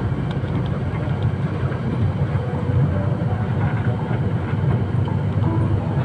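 Steady low rumble of a moving road vehicle's engine and tyres while driving.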